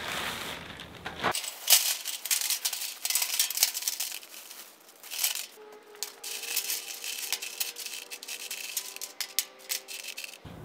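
Lava rocks poured from a bag into a metal fire pit burner pan and spread by hand: a dense, irregular clatter of many small rocks knocking against each other and the pan.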